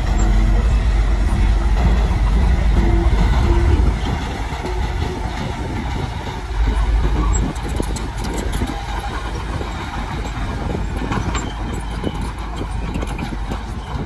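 Komatsu crawler bulldozer's diesel engine running under load as its blade pushes soil, with its tracks rattling. The engine rumble is loudest for the first four seconds, then eases, with a brief surge about seven seconds in.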